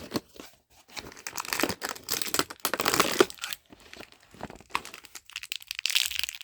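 Doorables blind-pack toy packaging crinkling and tearing in irregular bursts as it is opened by hand.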